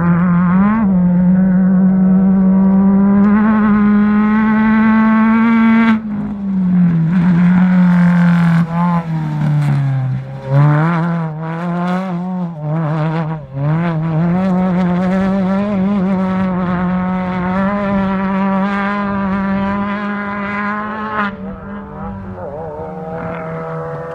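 Off-road race buggy's engine running hard at high revs. The revs sag and pick up again a couple of times as it lifts off and gets back on the throttle.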